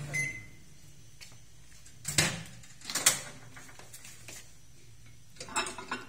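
Samsung microwave oven's running hum cuts off with a short beep as a panel button is pressed. About two seconds later there are two sharp clacks as the door is unlatched and swung open, then a light clatter of the glass mug near the end.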